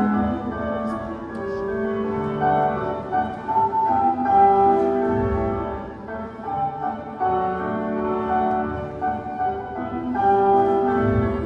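Classical instrumental music, led by piano, playing steadily as accompaniment for a ballet exercise.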